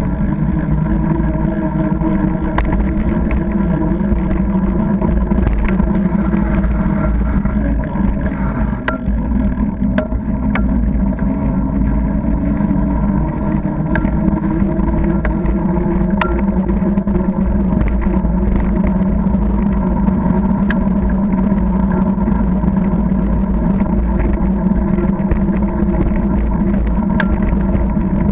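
Steady rolling hum and low wind rumble from a bicycle riding on wet tarmac, picked up by a camera mounted on the bike, with scattered sharp clicks.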